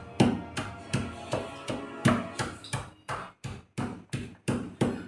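Pestle pounding in a small mortar (khalbatta), an even run of sharp strikes about three a second, crushing a coarse chutney of chillies, garlic, seeds and rock salt.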